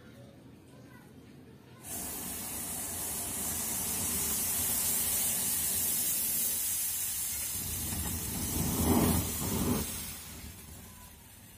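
A batch of coloured smoke-ball firecrackers hissing. The fuses catch with a sudden loud hiss about two seconds in, and the hiss runs on as the balls pour out smoke. Near the end come two louder, deeper surges, then the hiss fades.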